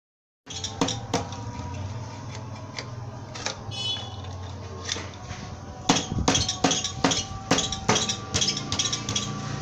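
Sharp metallic clinks and taps from hand work on a Honda Win 100 motorcycle engine, coming thick and fast from about six seconds in, over a steady low hum.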